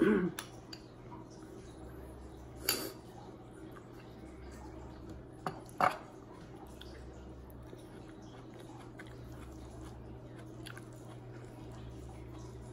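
Eating sounds: a metal spoon scraping and clinking against a glass bowl at the start, more sharp knocks of glassware on the glass tabletop around three and six seconds in, and quiet chewing. Under it all runs the steady low hum of a home fish tank.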